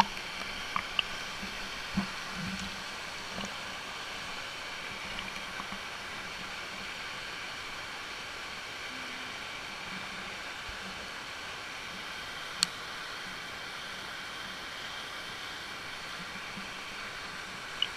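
Steady rush of small waterfalls pouring into a pool, heard from right at the water's surface, with a few small splashes and sharp taps in the first couple of seconds and one sharp click about two-thirds of the way through.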